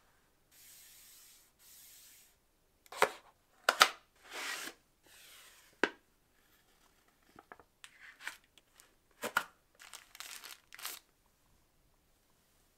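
Product packaging being opened by hand: two soft sliding rubs, then several sharp rips and crinkles of a tear strip or wrapping, followed by lighter clicks and rustles of cardboard and plastic being handled.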